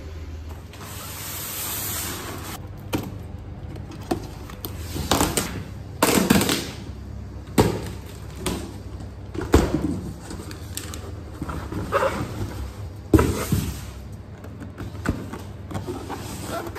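A cardboard shipping box is opened by hand. Scissors cut through the packing tape, the flaps rustle and scrape, and the rice cooker's boxed carton is slid out, making a string of sudden scrapes and knocks. A short steady hiss comes before them, near the start.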